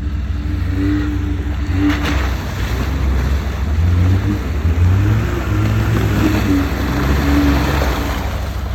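LuAZ 4x4's engine running and revving up and down, loudest between about four and eight seconds in, with a rushing hiss over it.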